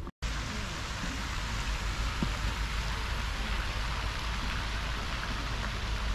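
Steady, even outdoor noise hiss with a low rumble underneath, starting after a moment of silence at the very beginning.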